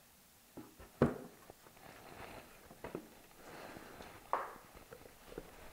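A wooden side panel being pressed by hand into its glued grooves in a cabinet carcass: a few light wooden knocks, the sharpest about a second in, with soft rubbing and handling noise between them.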